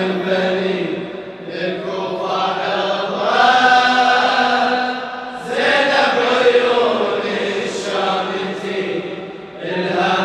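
Slow, drawn-out male chanting of an Arabic lament, the opening of a Shia latmiyya elegy, in long held melodic phrases with a short break about five seconds in.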